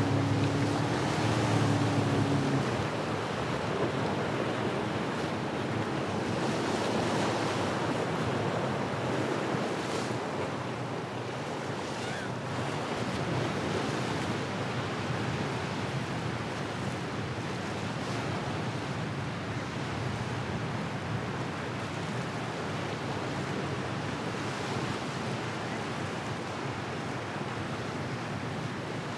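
Waves and surf washing steadily, with wind buffeting the microphone. A low engine hum is heard at the start and fades out after about two and a half seconds.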